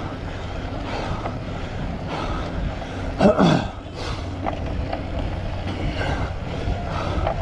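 Cyclocross bike riding over rough ground: a steady rumble with wind noise. A brief loud sound slides down in pitch about three seconds in.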